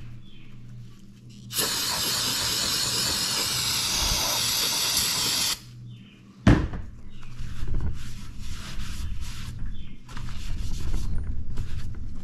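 Aerosol carburetor cleaner sprayed in one steady hiss lasting about four seconds that cuts off abruptly, flushing honing debris out of a freshly honed cylinder bore. About a second later comes a single sharp knock, followed by a string of short, uneven bursts of noise.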